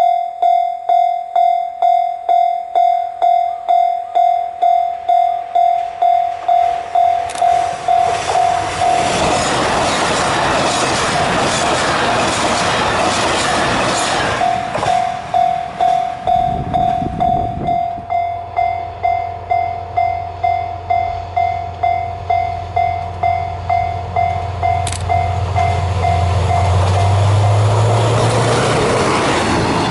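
Japanese level-crossing alarm bell ringing in a fast, even ding-ding of about two strokes a second. A diesel train passes in the middle with a rush of rumble and wheel noise that drowns the bell for a few seconds. The bell rings on as a low diesel engine drone builds and a second train arrives near the end.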